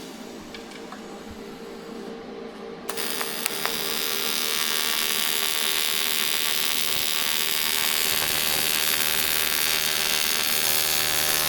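AC TIG welding arc on an aluminum wheel, run at full amperage and a low AC frequency of about 65–70 Hz so the weld penetrates deep: a low hum, then the arc strikes about three seconds in and buzzes steadily.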